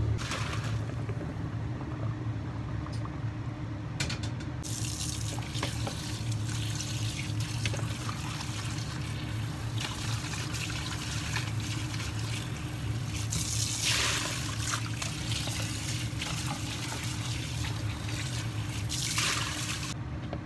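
Tap water running into a kitchen sink as sliced snail meat is rinsed by hand in a plastic bowl and colander. The water starts about four seconds in and is loudest about two-thirds of the way through and again near the end, over a steady low hum.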